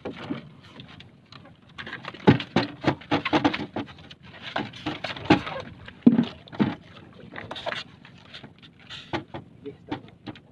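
Irregular knocks, clicks and rubbing as fishing line is handled and wound onto a styrofoam float with a flag pole, close to the microphone in a small wooden boat.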